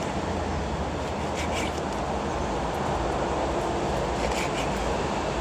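Water running steadily from a kitchen tap as pig lung is rinsed, with a few faint clicks of handling.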